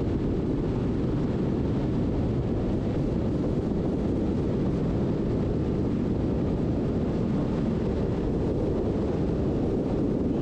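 Steady wind rush and road noise from a BMW F800GT motorcycle cruising at a constant speed, with wind buffeting the onboard microphone.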